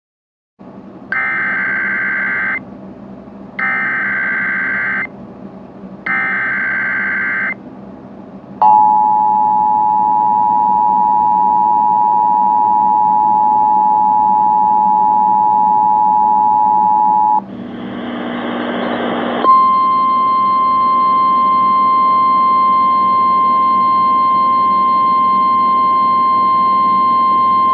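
Emergency Alert System test tones: three short buzzy bursts of SAME digital header data, then the two-tone EAS attention signal held for about nine seconds. After about two seconds of hiss comes the steady single-pitch NOAA Weather Radio warning alarm tone.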